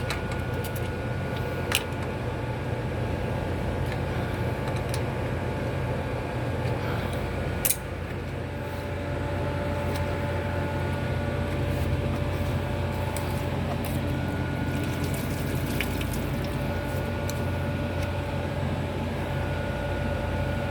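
Electric monoblock water pressure pump motor running with a steady hum, with a sharp click about eight seconds in, after which it runs a little louder.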